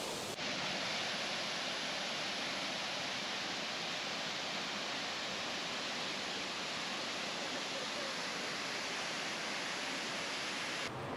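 Millaa Millaa Falls pouring into its pool: a steady, even rush of falling water, mixed with heavy rain.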